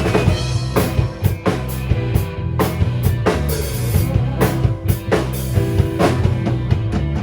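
Rock band playing an instrumental passage with no singing: a full drum kit drives it with steady kick and snare hits over sustained bass notes.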